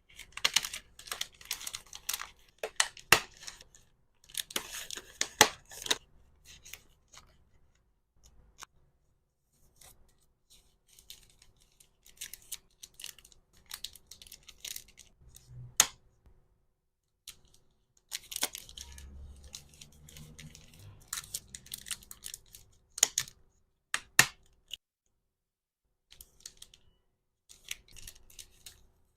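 Hands packing small accessories: rustling and crinkling of packaging with sharp clicks and snips. The sounds come in several busy spells with short quiet pauses between them.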